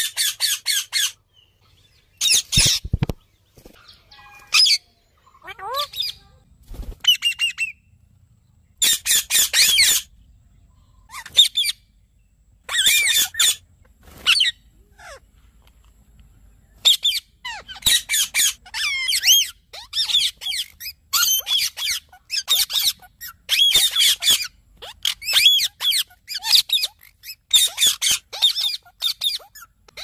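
Ringneck parakeets squawking in short, harsh bursts, scattered at first and coming almost back to back from a little past halfway.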